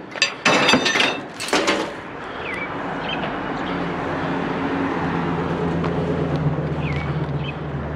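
A few sharp clattering knocks as junk is handled, then a motor vehicle's engine hum that grows louder over several seconds and holds steady.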